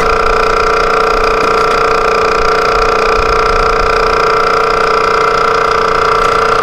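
A steady machine whine holding one unchanging pitch, with several overtones above it.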